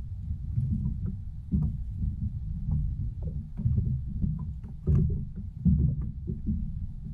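Sea water lapping and slapping against the hull of a Hobie Outback fishing kayak: an uneven low rumble with many small irregular knocks and splashes.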